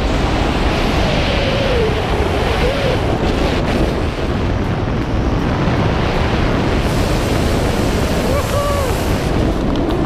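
Wind rushing over a wrist-mounted camera's microphone during a tandem parachute descent, a steady loud noise.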